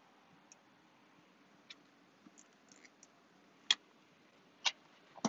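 Scattered sharp clicks and taps from the second-row seat of a Lexus LX 470 being handled, its plastic trim and latch mechanism worked by hand. There are a few faint ticks, then louder clicks about three and a half and four and a half seconds in, and another just before the end.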